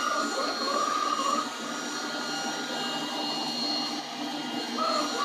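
XRobot 510D robot vacuum cleaner running: a steady motor and fan whir with several steady high-pitched tones.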